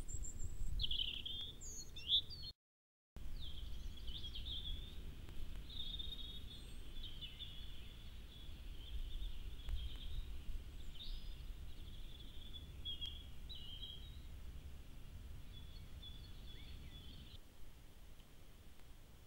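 Small songbirds singing in short, high chirping phrases over a low steady rumble from a trail camera's built-in microphone. The sound cuts out completely for a moment about two and a half seconds in, and the birdsong stops near the end.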